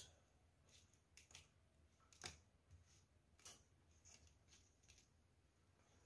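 Faint, scattered small clicks and rustles of jumper wires being handled and fitted onto a module's pins, over near silence; the sharpest click comes a little past two seconds in.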